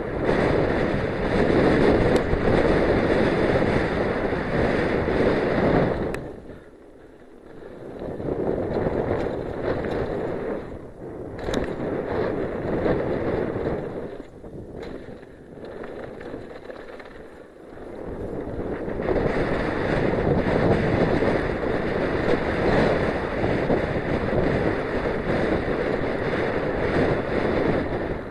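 Wind buffeting a helmet-camera microphone, mixed with the rolling rattle of a Giant Glory downhill mountain bike on a loose dirt trail. It is loud at speed, falls away twice where the rider slows, and builds back up in the last third.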